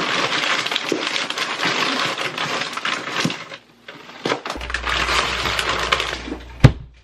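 Frozen food packaging, plastic bags and cardboard boxes, crinkling, rustling and clattering as packs are stacked into a chest freezer's wire basket, with one sharp knock near the end.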